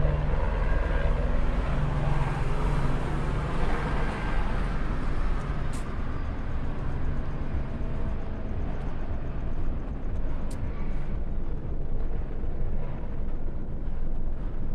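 Street traffic: a motor vehicle's engine hums steadily, fullest in the first several seconds, with a few faint clicks later on.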